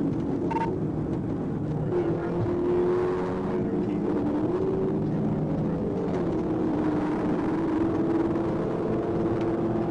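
Police cruiser's engine and tyre noise at highway speed, heard from inside the cabin, with the engine note shifting in pitch as the car gathers speed.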